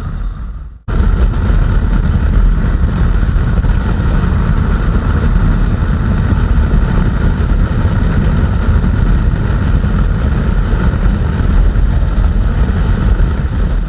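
Riding noise from a KTM 390 Adventure, a single-cylinder motorcycle, under way: steady wind rush over the microphone with the engine and road noise beneath it. The sound drops out briefly just under a second in, then runs on evenly.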